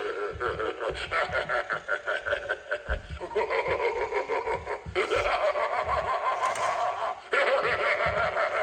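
Young Crouchy Scary Halloween animatronic playing its recorded creepy snickering laughter in several phrases with short breaks, as it runs its animation.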